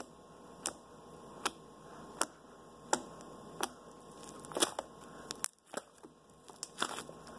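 Slime being poked and pressed with fingers, giving short sticky pops and clicks at a little under one a second.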